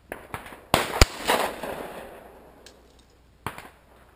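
Shotgun shots at flying clay targets: loud reports close together about a second in, each trailing off in an echo, then a fainter report near the end.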